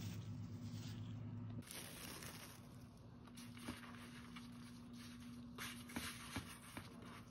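Quiet kitchen handling sounds: plastic wrap rustling as it is lifted off dough balls, then nitrile-gloved hands gathering crumbly peanut topping on a metal baking sheet, with a few light taps over a low steady hum.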